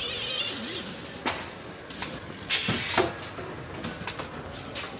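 Car-factory assembly-line noise: short bursts of hiss with metal clicks and knocks. A hiss fades early on, a sharp click comes just over a second in, and the loudest burst of hiss comes about two and a half seconds in, lasting about half a second.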